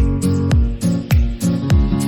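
Background pop music with a steady kick-drum beat, about two beats a second, and guitar chords.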